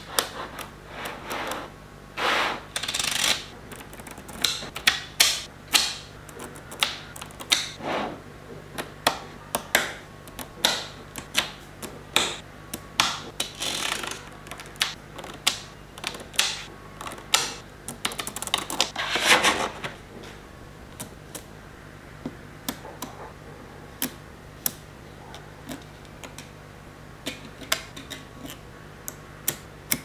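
Small magnetic balls clicking and snapping together as strips of them are pushed into place by hand: irregular sharp clicks, with a few longer bursts of clattering in the first two-thirds, and sparser clicks near the end.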